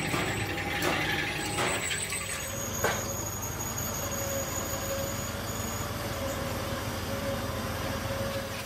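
A truck engine running steadily, with a low hum and a thin steady whine. A few sharp knocks sound in the first three seconds.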